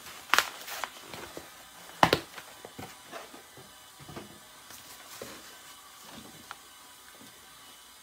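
Handling noise from a carpeted car floor mat being moved about close to the microphone: a few sharp knocks and rustles, the loudest about two seconds in, thinning out after about six seconds.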